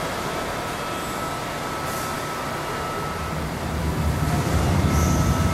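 Steady machinery noise of a cheese plant's production floor, with a constant thin whine in it. A low rumble grows louder about four seconds in.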